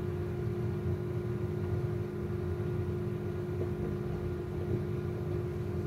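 Steady low machine hum with a constant faint tone running through it, unchanging throughout.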